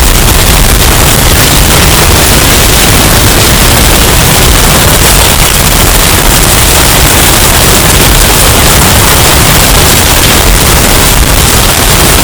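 Hurricane wind and storm sound effect, bass boosted and clipped into steady, heavily distorted noise at near full loudness, crackling throughout.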